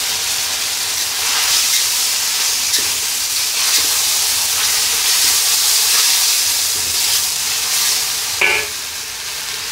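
Boneless chicken feet and sliced peppers sizzling steadily in a wok while being stirred and turned with a spatula.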